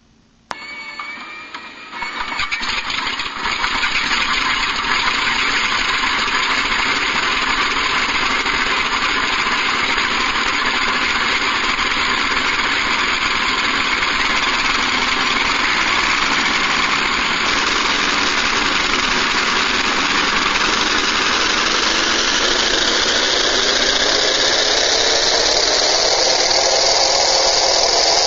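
Recorded sound of four Wright Cyclone radial aircraft engines played from a MrRCSound V4 RC sound module through its speakers: a rising starter whine, the engines catching about two seconds in, then all running together at idle. The sound fills out further after about twenty seconds.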